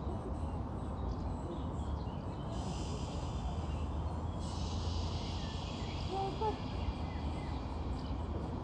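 Outdoor ambience: a steady low wind rumble on the microphone, with a high, even hiss that sets in about two and a half seconds in and holds almost to the end, and a few faint bird chirps.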